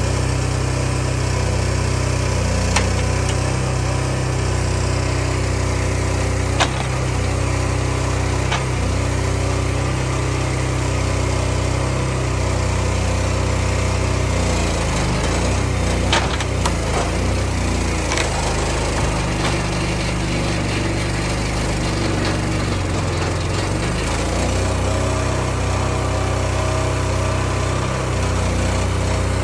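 Small engine of a trailer-mounted hydraulic log loader running steadily while the grapple works, its note shifting partway through. Occasional wooden knocks and clunks as logs are gripped and set down, the sharpest about a third of the way in and just past the middle.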